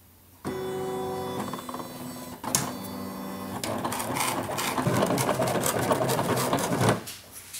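Silhouette cutting plotter cutting reflective heat-transfer film. Its motors whine at changing pitches, with clicks, as the blade carriage and rollers move. It starts about half a second in and stops near the end.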